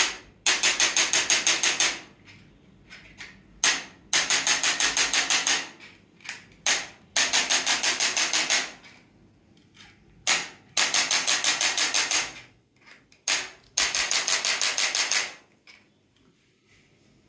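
A handheld percussive treatment device tapping in five bursts of about a second and a half, each a fast even string of taps, about seven a second, set off by a single sharp click just before it.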